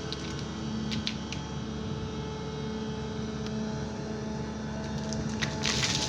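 Sany excavator's diesel engine running steadily while digging, with a few sharp clicks and a louder, rougher burst of noise near the end.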